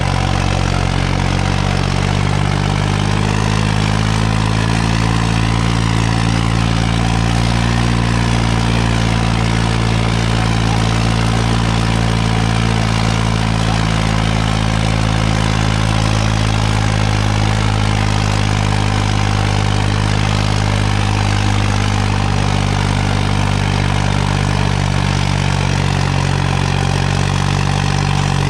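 A Farmtrac tractor's diesel engine runs steadily at a constant loud level. Its pitch dips slightly over the first few seconds and then holds.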